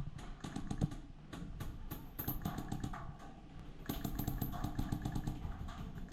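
Paintball markers firing: a fast, uneven string of sharp pops over a low rumble.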